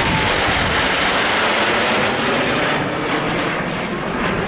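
CT-114 Tutor jet trainers of the Snowbirds aerobatic team passing low overhead: a loud, steady jet rush that eases off a little after about three seconds.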